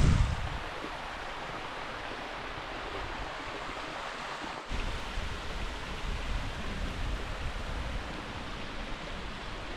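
Steady rushing of storm runoff flowing and cascading down a rocky desert canyon creek. About halfway through the sound changes abruptly and a deeper rumble comes in.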